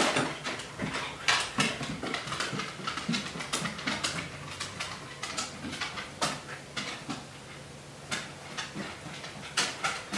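A dog searching by scent across bare wooden floorboards: irregular claw clicks and quick sniffs, several a second. A faint steady hum lies beneath.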